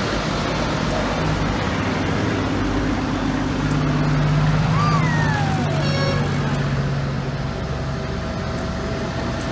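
Diesel tractor engines running steadily as a convoy of tractors drives slowly past one after another. The engine sound swells as one tractor passes close, about four to five seconds in, then eases off.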